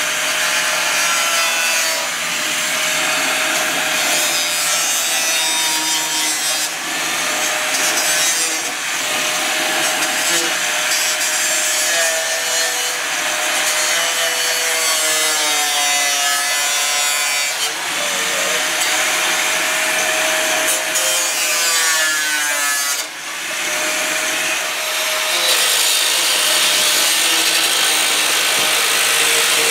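Angle grinder cutting through rusted sheet steel in a car body, running continuously with its whine wavering in pitch.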